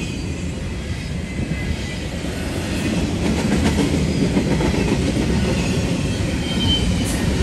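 Double-stack intermodal freight train's well cars rolling past: a steady rumble of steel wheels on rail with light clicking.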